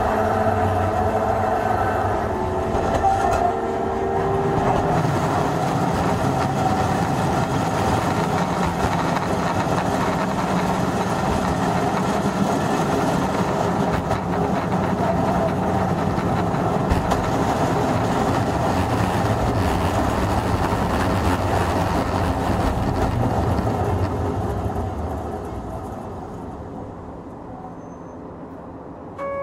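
Hankai Tramway type 351 tram running, heard from on board: the whine of its nose-suspended traction motors and gears over wheel and rail noise. From about 24 seconds in it quietens as the tram slows toward a stop.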